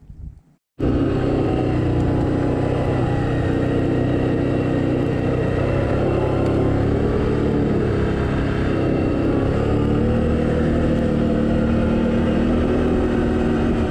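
Can-Am Outlander ATV engine running steadily under way, cutting in abruptly about a second in.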